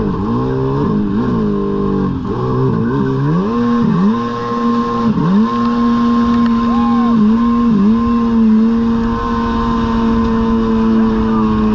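Stand-up jet ski engine running under way. The revs dip and climb again several times, then hold high and steady with two brief dips about midway, over the rush of water and wind.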